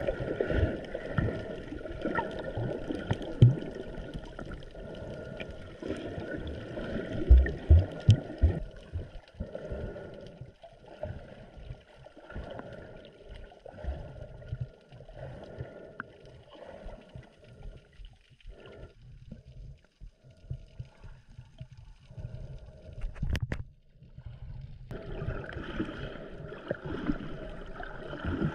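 Water sloshing and gurgling around a snorkeller's camera at the surface, with irregular thumps and knocks. It drops almost to silence for a moment near the end, then the sloshing returns.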